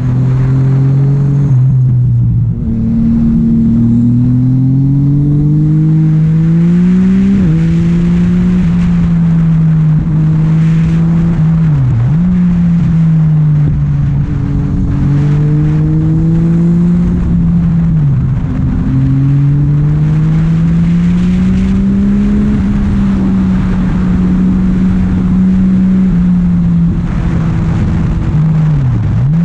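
Motorcycle engine heard from the rider's seat, pulling up through the revs and dropping in pitch at several gear changes, with stretches of steady cruising. A steady rush of wind runs underneath.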